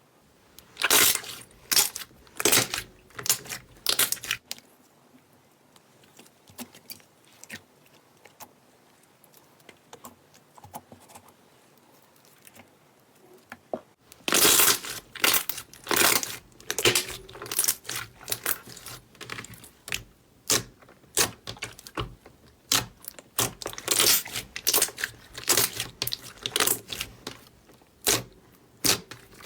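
Slime being squeezed and pressed by hand, giving irregular sharp pops and crackles as trapped air breaks. It comes in busy bursts for the first few seconds, thins out to scattered pops, then turns busy again from about halfway.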